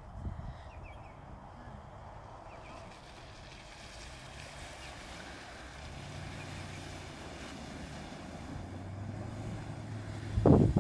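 Range Rover SUV driving through shallow floodwater on a wet field, its engine hum steady and growing louder as it approaches; a sudden loud rush near the end as it comes close.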